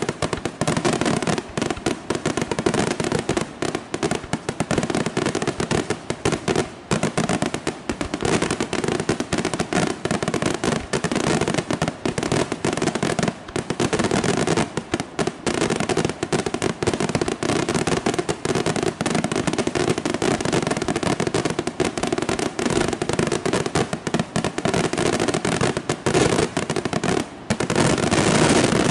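Aerial fireworks shells bursting in a dense, almost unbroken barrage of bangs and crackling, loud throughout, then dropping away suddenly at the very end.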